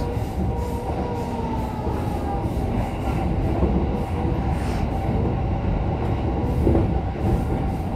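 A Keihin-Tohoku Line electric commuter train running, heard from inside the carriage: a steady rumble of wheels on the track with a thin, steady whine above it.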